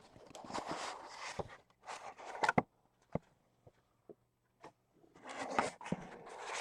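Cardboard and packaging rustling and scraping as a freshly cut card box is opened and handled, with scattered light clicks, in two stretches with a short lull in between.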